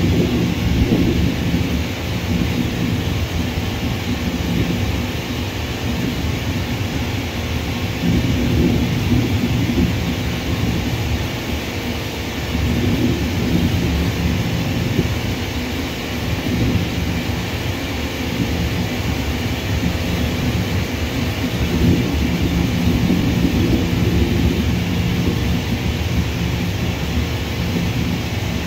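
Distant jet airliner engines rumbling across an airfield, a low steady roar that swells and fades unevenly.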